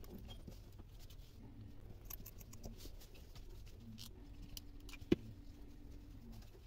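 Faint handling noises of jute twine and small plastic parts being worked by hand: scattered light ticks and rustles, with one sharp click about five seconds in.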